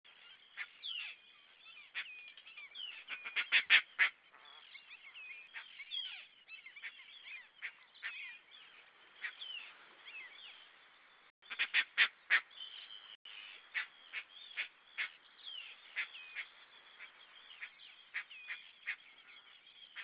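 A flock of birds calling over one another: many short, high calls that glide up and down in pitch, loudest in dense clusters about three to four seconds and twelve seconds in.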